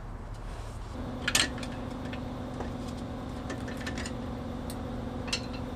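Scattered metallic clinks of tools and axle-hub parts being handled on a heavy truck's rear wheel end, the sharpest about a second in. A steady hum with a clear tone starts at about the same moment.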